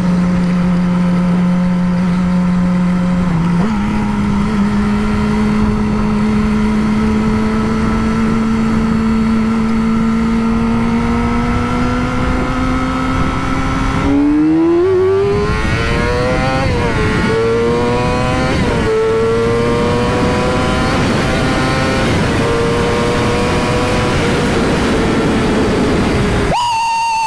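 Motorcycle engine under way, at first pulling steadily with its pitch slowly creeping up. About halfway through, the rider accelerates hard through the gears: the pitch climbs and drops at each of two upshifts, then settles. Near the end there is a brief cut in the engine note.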